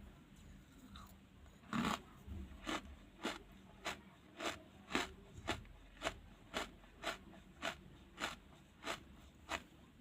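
Charcoal being chewed close to the microphone: one louder crunch about two seconds in, then steady chewing crunches at about two a second.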